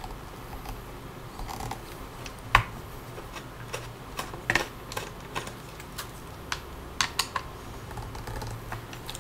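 Small screwdriver working the screws out of a laptop's hard-drive caddy: scattered sharp metallic clicks and ticks at irregular intervals, the sharpest about two and a half seconds in.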